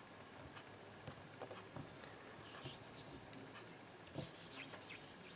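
Faint rubbing and scattered light clicks of hands rolling small pieces of modelling clay and handling a small plastic container.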